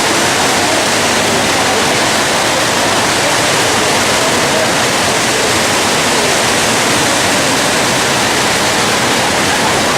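Loud, steady rushing of Fukuroda Falls, a large waterfall pouring down its rock face.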